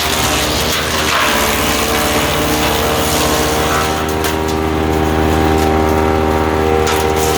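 Ducar wood chipper's small gasoline engine running steadily at speed, with a harsher grinding, crackling noise over the first few seconds as branches are chipped, and a few short clicks later on.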